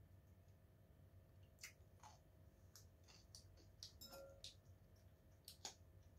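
Faint, scattered clicks and light scrapes of a metal fork in a ceramic salad bowl, with quiet chewing, over a low steady hum.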